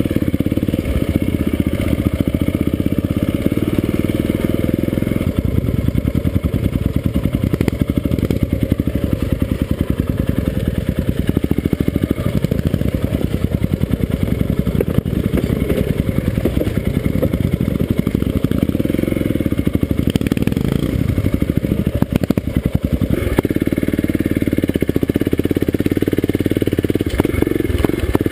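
Off-road motorcycle engine running continuously as the bike is ridden, heard close up from the rider's own machine.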